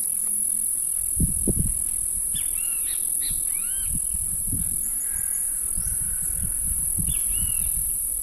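A steady, high-pitched chorus of insects trilling without a break, with birds giving short arched calls about three seconds in and again near seven seconds. A few low thumps come about a second and a half in.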